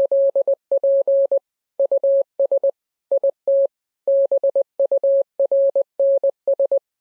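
A single steady electronic beep tone keyed on and off in short and long beeps, grouped with uneven gaps, in the pattern of Morse code.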